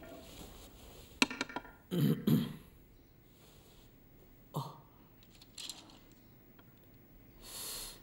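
A man clears his throat with a short, gruff cough about two seconds in, just after a quick run of sharp clicks. A smaller grunt follows near the middle, and a breathy exhale comes near the end.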